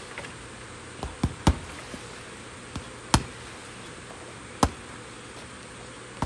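Strikes landing on a hanging Everlast heavy bag: about six sharp thuds at uneven spacing, three in quick succession about a second in and single ones later, over a steady buzz.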